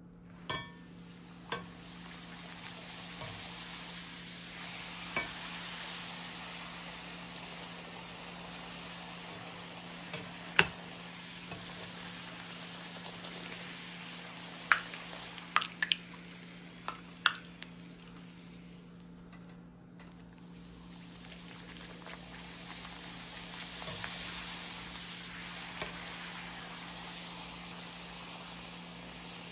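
Food sizzling as it fries in a pan, with a few sharp taps of a utensil against the pan scattered through it.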